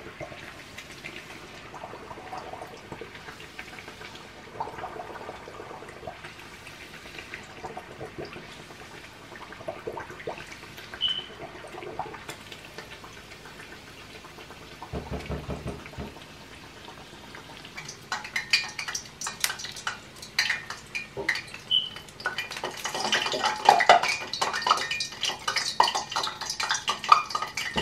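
Gordita of corn masa frying in hot oil in a stainless saucepan: a steady sizzle and crackle that grows louder and busier in the last ten seconds. Light clinks of metal utensils against the pan as it is turned and lifted out of the oil.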